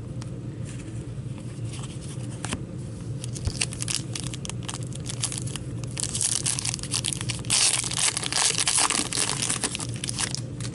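A foil trading-card pack wrapper being torn open and crinkled, with loud bursts of crackling about six seconds in and again from about seven and a half to nine and a half seconds in. Lighter rustles and clicks of cards and wrapper being handled come before.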